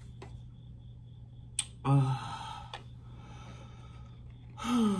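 Oracle cards being drawn by hand over a steady low room hum: a light click, a brief hum-like sound from a woman about two seconds in, another small click, then her voice starting near the end.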